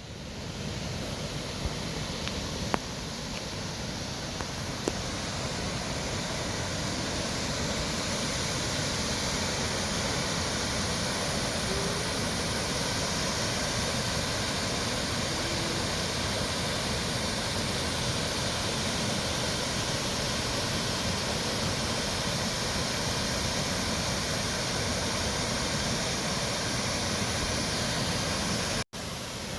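Waterfall pouring: a steady, full rushing noise that swells over the first several seconds and then holds constant.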